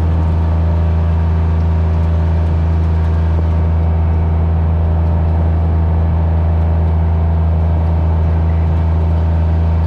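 Motor vehicle engine running at a steady speed, an even low drone that holds the same pitch and loudness throughout.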